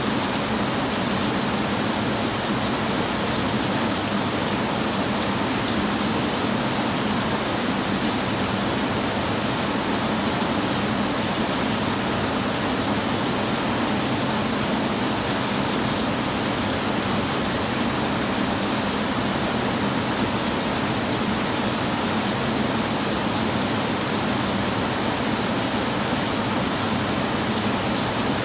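Heavy rain falling steadily on a tin roof, an even, unbroken hiss with no thunder.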